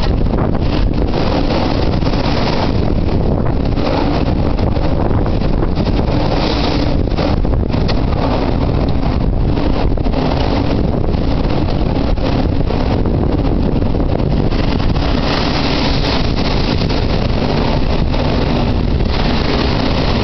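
Typhoon wind blowing hard and steadily, buffeting the microphone with a loud, continuous low rumble that swells and eases in gusts.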